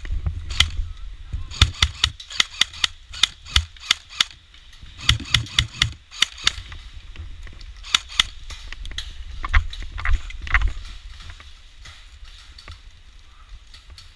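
Airsoft guns firing: strings of sharp, quick cracks in several bursts, with low thumps underneath.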